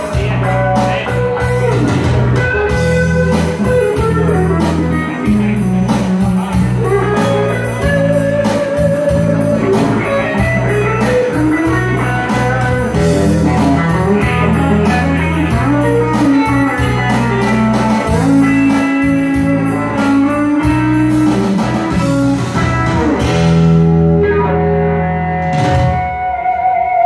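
Electric guitar played live, a bluesy lead line over low bass notes and a steady beat. The beat drops out about three quarters of the way through.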